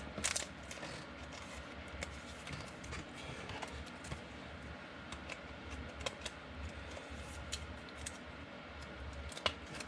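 Football trading cards being handled and slid against one another as a pack is gone through: scattered light clicks and scrapes over a low steady hum.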